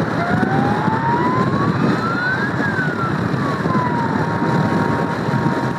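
Wind and road noise rushing over a microphone held out of a moving van's window, with a police siren wailing under it: one slow rise lasting about two seconds, then a fall, then a held note near the end.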